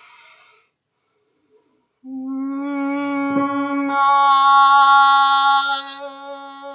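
A woman's quick in-breath, then one long sung note held on a steady pitch as a breathing-and-projection exercise. The note swells louder and brighter about halfway through, then eases off near the end, showing a diaphragm-driven change of intensity on the same pitch.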